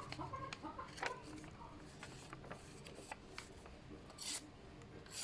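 A carbon-steel knife slicing in a sharpness test: a few short rasping cutting strokes, the clearest about four seconds in and another near the end. Chickens cluck faintly in the background.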